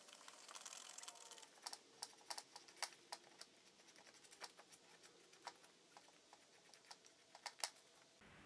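Faint, irregular small clicks and taps, packed close together for the first second or so, then scattered, with one sharper click near the end.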